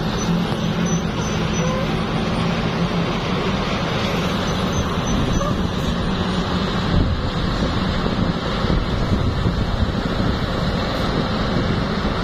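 Road traffic passing: a vehicle engine's steady low drone fades out over the first few seconds, leaving continuous traffic noise.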